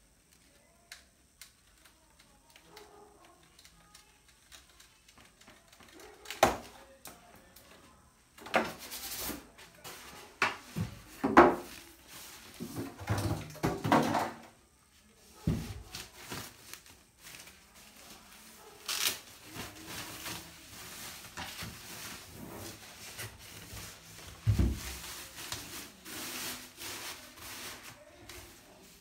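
Unboxing noises from a cardboard soundbar box and its packaging being handled: rustling, scattered knocks and several heavier thumps, busiest in the middle.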